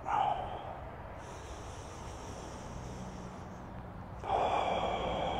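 A man breathing hard through the mouth: after a quieter stretch, a long forceful exhale starts a bit over four seconds in, pushing all the air out of the lungs.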